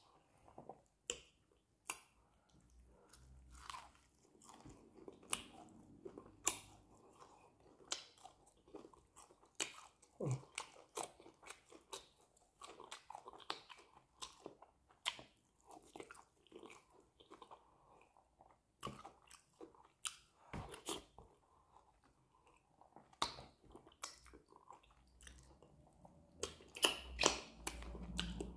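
A person biting into and chewing a large piece of soup-soaked fish: wet chewing with irregular sharp crunches, which come thicker near the end.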